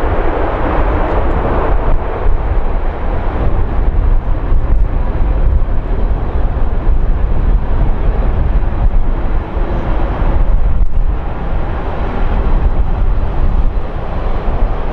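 Jet airliner engines running at the airport, a steady loud rushing noise over a deep rumble, a little stronger in the first second.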